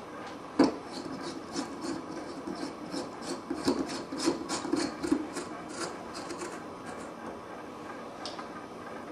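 Compact fluorescent spiral bulbs being screwed into their lamp holders: a knock about half a second in, then a run of short scraping clicks as the bulb bases turn in the sockets, thinning out after about five seconds.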